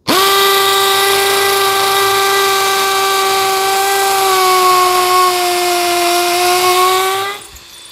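Makita DHP458 18V cordless hammer drill in hammer mode at speed 2, drilling a 6 mm hole into concrete with a masonry bit: a loud, steady, high buzzing whine that dips slightly in pitch under load in the middle. It winds down and stops a little after seven seconds in.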